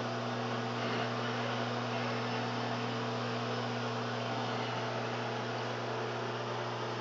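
A 1200-watt LG microwave oven running mid-cook: a steady electrical hum over an even rush of air.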